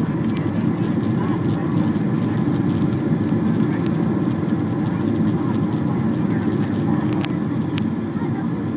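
Airliner cabin noise on descent for landing: the steady, deep rush of the jet engines and airflow heard from a window seat. A couple of faint clicks come near the end.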